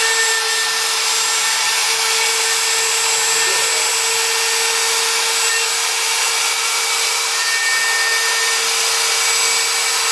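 CNC machine's spindle motor running steadily, a constant tone over a loud, even hiss.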